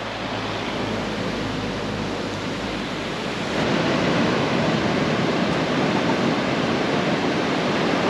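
Steady rushing noise of wind and sea surf, with no distinct events; it grows a little louder about three and a half seconds in.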